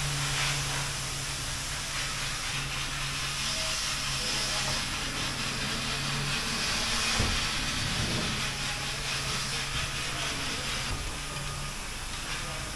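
A steady hiss of rushing air or spray, with a low steady hum beneath it.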